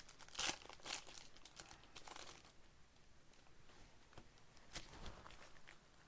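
Plastic trading-card pack wrappers crinkling as packs are handled and torn open by hand, in irregular crackles that are strongest in the first second and again about five seconds in.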